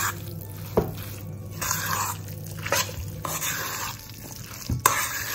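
A spoon mixing a creamy chicken, mushroom and corn salad dressed with sour cream and mayonnaise in a bowl: repeated wet squishing strokes, with a few clicks of the spoon against the bowl.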